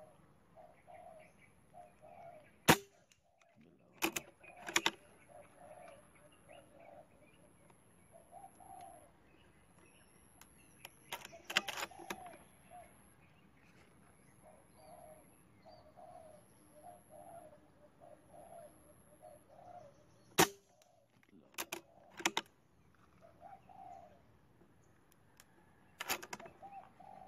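Converted CO2-to-PCP Armscor air rifle firing: sharp single cracks about 3 seconds in and again about 20 seconds in, with several shorter clicks and knocks between. Doves cooing in short repeated phrases in the background.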